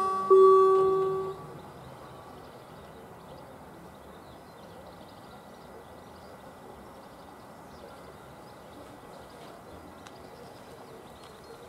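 Electronic level-crossing bell gives one last ding a fraction of a second in, which rings out and fades within about a second as the barriers finish lowering. After that there is only faint outdoor ambience with light bird chirps.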